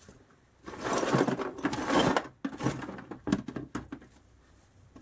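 Loose metal motorcycle spare parts rattling and clinking as they are rummaged through in a box: a busy clatter for about a second and a half, then several separate clicks and knocks.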